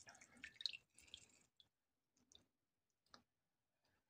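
Faint drips and squelches of water as soaked gelatin leaves are squeezed out over a plastic tub, thinning after about a second to near silence with a few isolated faint ticks.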